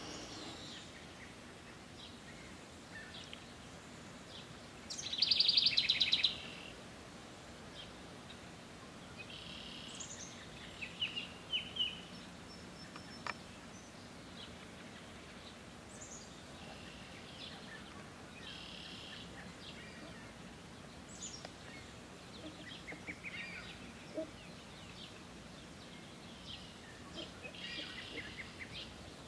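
House wren singing: one loud, fast run of rapidly repeated notes lasting just over a second, about five seconds in. Fainter bird song phrases come and go throughout over a steady low background hum.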